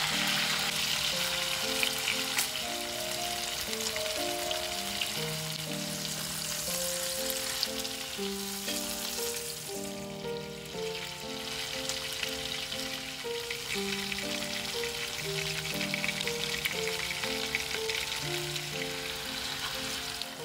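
Chicken breasts frying in butter and garlic in a pan, a steady dense sizzle that dips briefly about halfway through. Soft background music with a simple melody plays underneath.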